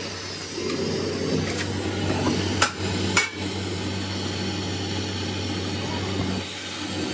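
Two sharp, hard knocks about half a second apart, near the middle, as a large tractor tyre is handled and laid down, with a lighter knock just before. A steady low hum runs underneath.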